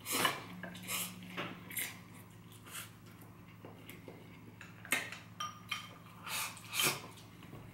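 Wooden chopsticks clinking and scraping against a small glass bowl while noodles are picked out and eaten from it, a scattered run of about a dozen short clinks, one of them briefly ringing. A faint low hum lies underneath.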